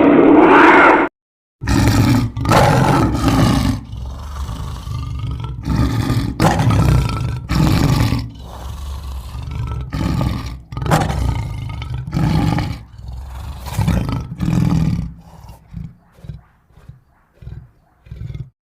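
Sound-effect roars of a dinosaur-like cryptid monster: one loud roar that cuts off about a second in, then after a brief silence a string of shorter roars and growls that grow fainter and break into short grunts near the end.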